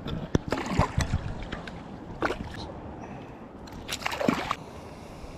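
Bream splashing at the water's surface in short bursts, three times. The last and largest splash comes about four seconds in, as the fish is shaken off the fly and drops back into the water.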